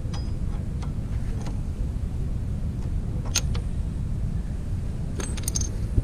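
Light metallic clicks and clinks of a thin metal tool against the Nissin front brake caliper of a Kawasaki Concours 14 during pad removal, a few scattered ticks with the sharpest a little over three seconds in and a quick cluster near the end. A steady low rumble runs underneath.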